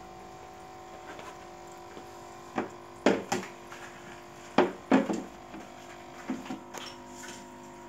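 Steady electrical hum from the aquarium's equipment, with a stream of air bubbles rising in the tank. A handful of short knocks and taps sound in the middle stretch, the loudest about three and five seconds in.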